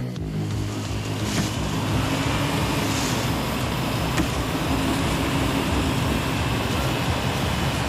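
Off-road vehicle driving, its engine running steadily under a constant rushing noise of tyres and travel.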